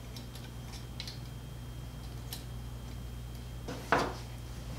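Light metallic clinks and taps of small hand tools being handled on a workbench, with a louder knock and brief clatter about four seconds in as something is picked up from the desk. A steady low hum runs underneath.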